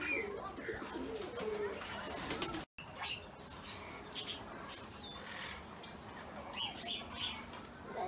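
Aviary bird chorus: doves cooing low over the first couple of seconds, and small birds chirping and twittering high throughout. The sound drops out completely for an instant a little before the three-second mark.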